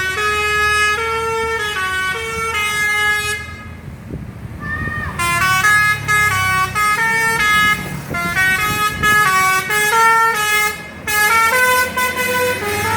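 Indonesian bus 'telolet' combination musical air horn playing a quick tune of short stepped notes, breaking off about three and a half seconds in and starting up again a second or so later, over low engine and road rumble.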